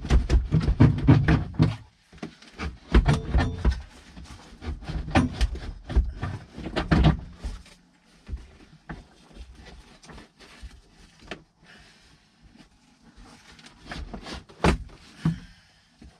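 A Dodge Ram's HVAC heater box being worked loose and pulled back out of the dash, with repeated clunks, knocks and scraping. The noise is loudest in the first seven seconds, then drops to lighter taps, with two sharp knocks near the end.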